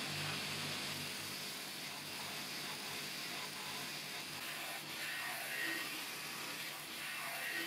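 Steady machine hum and hiss from workshop equipment, with a low pulsing hum. A few faint metallic clicks in the second half as the steel grinding jig and locking pliers are handled.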